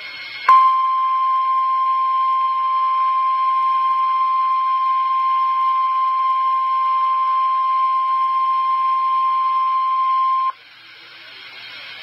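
NOAA Weather Radio 1050 Hz warning alarm tone heard through a radio receiver's speaker: a single steady, loud beep held for about ten seconds. It comes on with a click about half a second in and cuts off suddenly, leaving radio hiss. The tone signals that an emergency warning message follows, here a severe thunderstorm warning.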